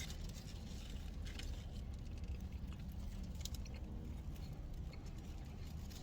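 Close-up chewing of In-N-Out animal fries (fries topped with cheese, spread and grilled onions), with faint wet mouth clicks and crackles. A steady low hum sits underneath.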